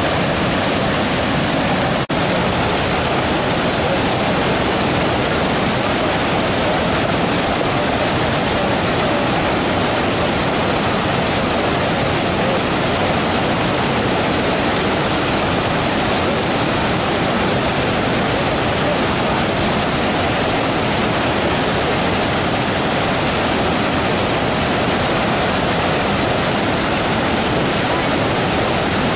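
Loud, steady rush of a waterfall, with a momentary break in the sound about two seconds in.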